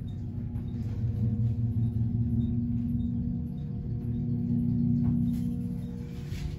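Westinghouse hydraulic elevator car travelling up to the upper level: a steady low hum with a few held tones from the pump unit and the moving car, easing off near the end as the car slows to level, with a couple of faint knocks.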